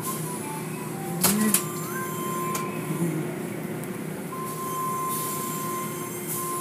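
Automatic tunnel car wash running: a steady machine hum under the hiss of water spray, with two sharp knocks a little over a second in and a steady high tone that comes and goes.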